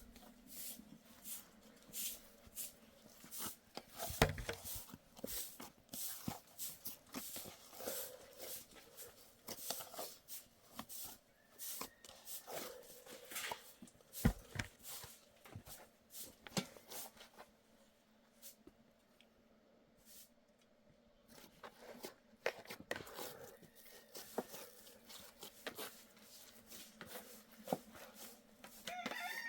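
Irregular clicks, taps and rustles of something being handled close by, with a quieter stretch past the middle.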